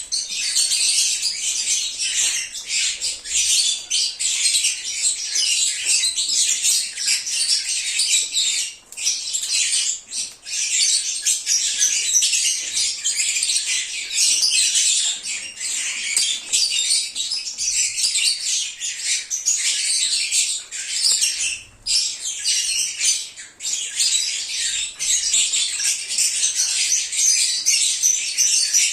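Lovebirds (Agapornis) chirping and chattering all at once in a steady, shrill, overlapping flock chorus, with brief lulls now and then.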